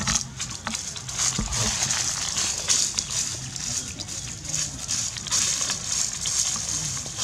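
Dry fallen leaves crunching and crackling underfoot in a steady run of small crackles, as someone walks over thick leaf litter.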